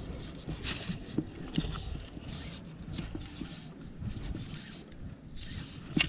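Water lapping and sloshing against a small boat's hull with wind on the microphone, in uneven surges, with a few light knocks and a sharper click near the end.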